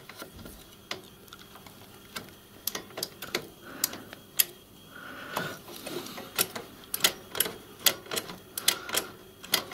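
Irregular light metal clicks and knocks from a miniature steam locomotive's trailing pony truck being rocked by hand from side to side against its centring springs. The clicks come in an uneven run, several a second, starting about two and a half seconds in.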